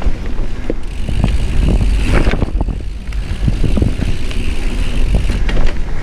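Mountain bike rolling along a dirt singletrack, heard through wind buffeting a chest-mounted action camera's microphone: a steady low rumble of wind and tyres on dirt, with frequent clicks and rattles from the bike over bumps.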